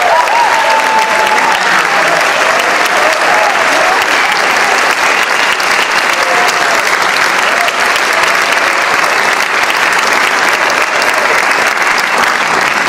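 Audience applauding loudly for a barbershop quartet, with some cheering voices in the first few seconds.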